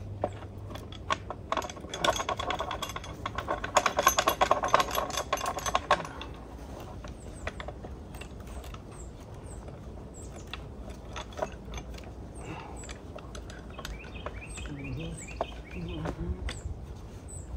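Rapid mechanical ratcheting clicks for about four seconds, starting about two seconds in, as hardware is worked on a wooden board. Scattered clicks and knocks follow.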